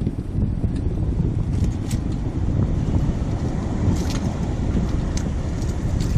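Wind buffeting the microphone on open water: a steady low rumble, with a few faint ticks.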